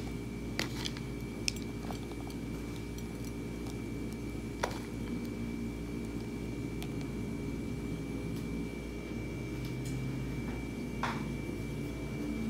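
Crushed peanuts sprinkled onto a sauced fresh lumpia on a plate, with a few light, sharp clicks scattered through as bits land, over a steady low hum.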